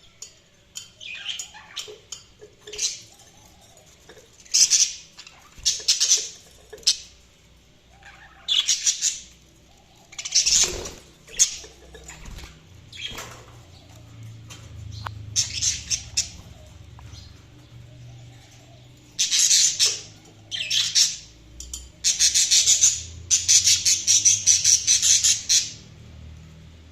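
Budgerigars chirping and squawking in short, high calls, with a longer run of fast chatter near the end.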